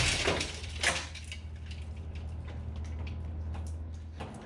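Metal clinks and rattles from a shop-crane engine hoist and its chain as it is worked against a car's front end, with a sharp clank about a second in. A steady low hum runs underneath and stops near the end.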